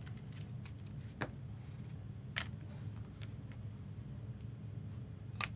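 Trading cards being handled: a few sharp clicks and soft rustles of cards and their packaging, three of them louder, over a low steady hum.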